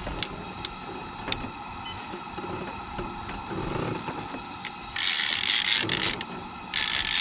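Fishing reel being cranked with a fish on the line, its gears and ratchet clicking and whirring. About five seconds in come two loud bursts of hiss-like noise, each about a second long.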